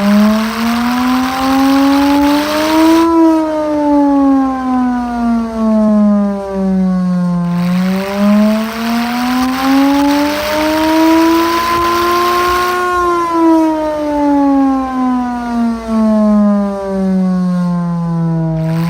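Chrysler air raid siren wailing, its pitch slowly rising and falling about every ten seconds. It is really loud.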